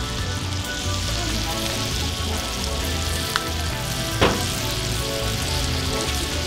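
Two smashed beef burger patties sizzling on a hot Cuisinart flat-top griddle, a steady frying hiss. A short sharp tap comes about four seconds in.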